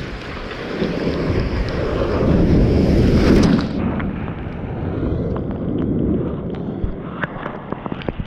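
A wave surging up over the boulders and washing foaming seawater around the feet, with wind buffeting the microphone. The rush builds to a peak about three seconds in, then turns duller, with scattered knocks and splashes as the water drains off the rocks.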